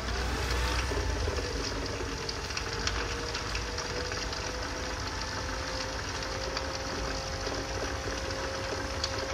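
Newly replaced drive motor of a Bajaj Chetak electric scooter running. A steady electric whine rises in pitch over the first second, then holds. There is no grinding: the noise fault has been cured by replacing the motor.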